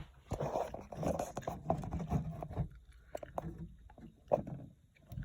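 Handling noises: rustling and scraping, with many small sharp clicks and knocks, busiest in the first half and then a few single clicks.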